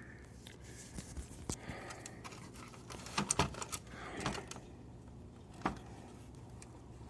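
Scattered light clicks and taps from a paperclip being handled and worked into a hole drilled through a plastic power switch, over a faint steady hum.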